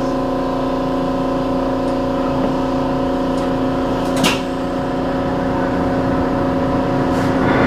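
Electric commuter train running at a steady speed, heard inside the car: the traction motors hum at an unchanging pitch over the rumble of the wheels on the rails, with one sharp knock about four seconds in.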